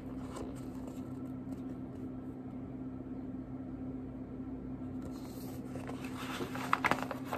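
Steady low hum of room tone, with the rustle and handling clicks of a picture book's paper pages being turned over in the last two seconds or so.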